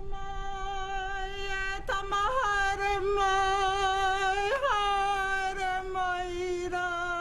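A woman's long, high call held on one note with a slight waver, her pitch lifting briefly twice, about two and four and a half seconds in.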